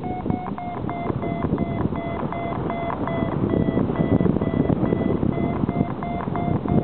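Paragliding variometer beeping, several short, evenly spaced beeps a second, which tells the pilot the glider is climbing in rising air. Wind rushes over the microphone underneath.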